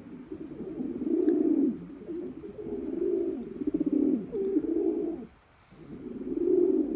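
Domestic homing pigeons cooing: a run of low, rolling coos repeated one after another, with a brief pause a little after five seconds in.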